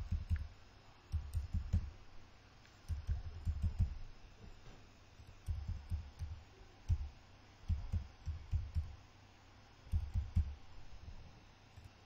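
Computer keyboard typing in short bursts with pauses between them, the keystrokes coming through as dull low thuds.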